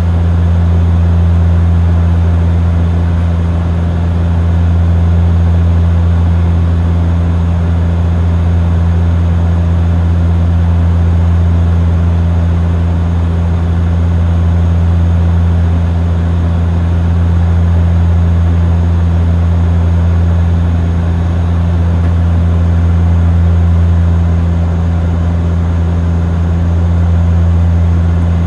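Steady low drone of a turboprop airliner's propellers and engines heard inside the cabin in flight, with a gentle rise and fall in loudness every few seconds.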